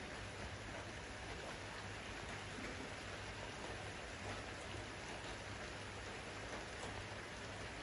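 Steady splashing and bubbling of aquarium water over a low, even hum.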